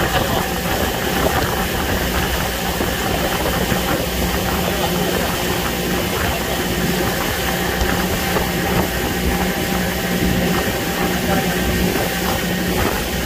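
Small motorboat's engine running at a steady pace while underway, with a constant rush of wind and water.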